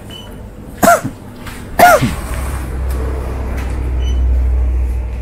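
A person's voice making two short, loud vocal outbursts about a second apart, each dropping sharply in pitch, followed by a low rumble.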